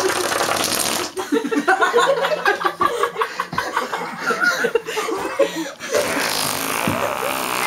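Imitation fart noises made by a person, mixed with laughter.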